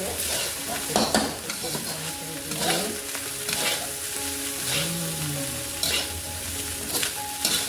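Metal spatula scraping and tossing fried rice around a hot wok, in strokes roughly once a second over a steady frying sizzle. The scratchy 'krik-krik' is the rice crisping into a crust on the bottom of the wok.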